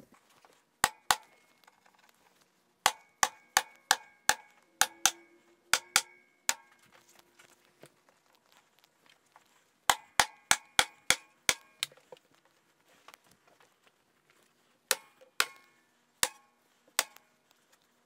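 Upholstery staple gun firing staples through the recliner's outside arm panel into its wooden frame: sharp snapping shots with a short metallic ring, in quick runs of up to about three a second with pauses between, some twenty-odd in all.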